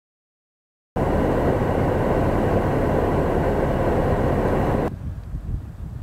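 Shallow river rushing over gravel: a steady, loud noise that starts abruptly about a second in and cuts off suddenly about a second before the end. Wind gusting against the microphone follows.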